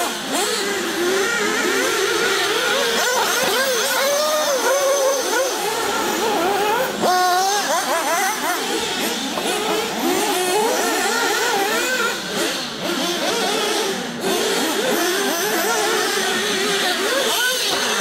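Several 1/8-scale nitro RC cars' small glow-fuel engines racing together, their high-pitched whines rising and falling as they accelerate and back off. One whine climbs sharply about seven seconds in.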